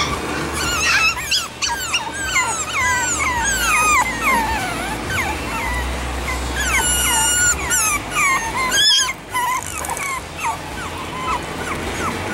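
Chihuahua puppies whining and yipping: many short, high calls that fall in pitch, overlapping one another and thinning out near the end.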